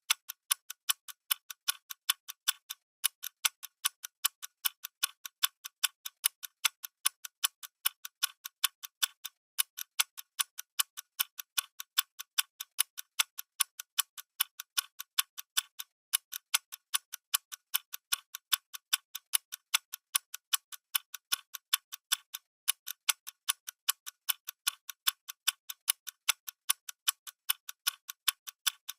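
Clock ticking steadily for a countdown timer: sharp, high, evenly paced clicks with no low end.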